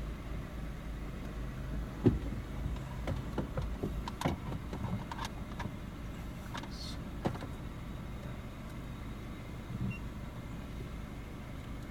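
Car engine idling with a steady low hum, heard from inside the cabin, with a scatter of sharp clicks and knocks in the cabin, the loudest about two seconds in.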